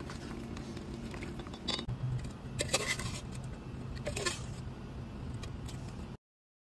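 A metal or plastic cooking utensil scraping and clinking against a pot of curry over a steady low hum. There are sharper clinks about two and three seconds in and again just after four seconds, and the sound cuts off suddenly after about six seconds.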